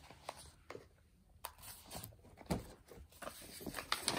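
Handling noise from a stack of printed paper sheets being moved and set down: a few short, separate rustles and light taps.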